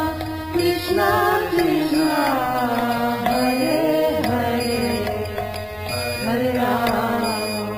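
Indian devotional music: a voice singing a mantra in a sliding melody over a steady drone.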